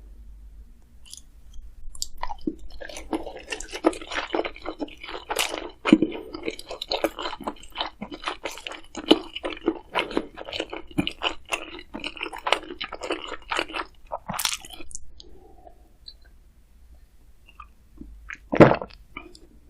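A person chewing crunchy food close to the microphone: a dense run of quick crunches for about twelve seconds, then quieter chewing, with one loud crunch near the end.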